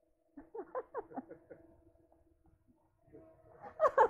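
Small quadcopter drone (DJI Mavic Mini) hovering close by, its propellers giving a steady hum, with short bursts of voices and laughter over it, loudest near the end.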